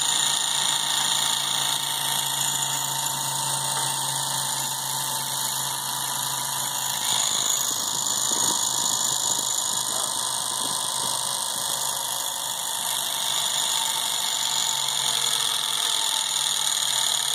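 Electric motor belt-driving a car alternator, running steadily with a constant high-pitched whine over a low hum. The alternator is being spun to charge the rig's battery.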